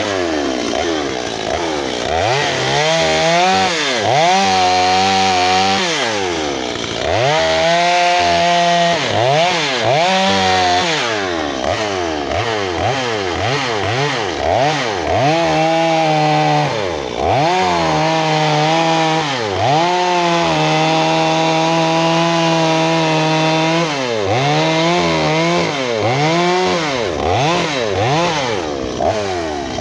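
Gas chainsaw carving wood, its engine revved up and down over and over, with short stretches held at full throttle while the chain cuts.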